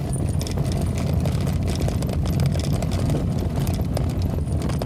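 Vehicle driving along a road: steady engine and road rumble with frequent small clicks and rattles.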